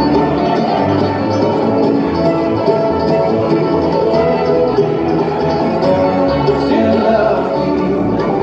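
Live bluegrass band playing an instrumental passage on fiddle, banjo, guitar and upright bass, amplified through a hall's sound system.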